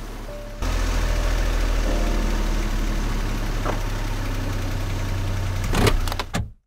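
Car engine idling, heard from inside the cabin as a steady low rumble. Near the end come a few sharp clicks as the gear selector is moved, then the sound cuts off suddenly.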